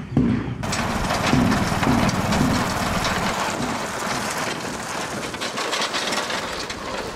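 Small step-through motor scooter being ridden along a rough dirt track, its engine running under a dense rushing noise that cuts in about half a second in.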